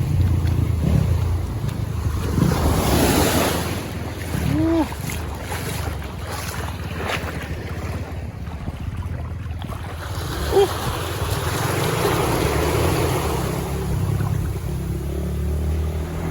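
Surf washing onto a beach, swelling and easing, with wind buffeting the microphone as a steady low rumble. Two short high calls come through, one about four seconds in and another near ten seconds.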